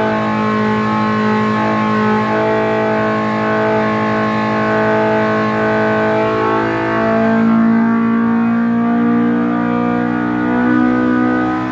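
Polaris RZR Pro R four-cylinder engine, breathing through an aftermarket RPM header and a 3-inch straight-through muffler, running under load on a Superflow 902S engine dyno during a power run. Its engine speed climbs slowly from about 6,500 toward 7,000 rpm.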